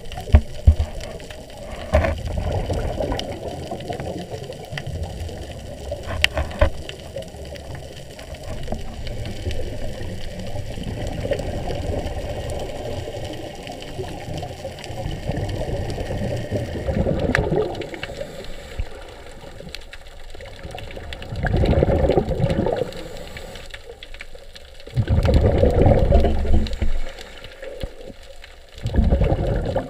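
Underwater sound from a scuba dive heard through a GoPro housing: a steady rush of water, then several loud bubbling bursts a few seconds apart in the second half, typical of a diver's exhaled bubbles from the regulator.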